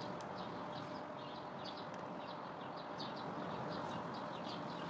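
A bird chirping repeatedly, a few short high chirps a second, over steady background noise.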